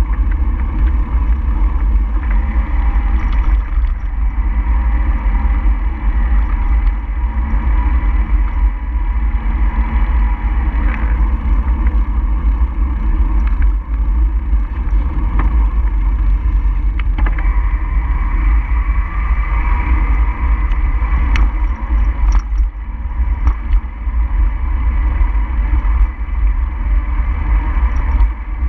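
Loud, steady low rumble of wind and road noise on a camera moving along a road.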